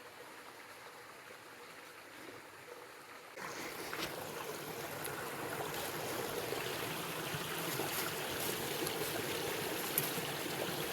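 Creek water running as an even rushing hiss. It is faint at first and turns abruptly louder about three and a half seconds in, with a few light knocks.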